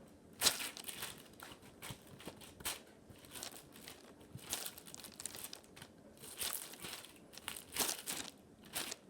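Hands working clear-glue slime: irregular crinkling, crackling handling noises with occasional sharper pops, the loudest about half a second in and near the end.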